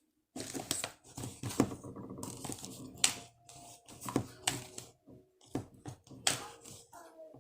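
Slime being squished and worked by hand, giving irregular sharp clicks and crackles with short pauses.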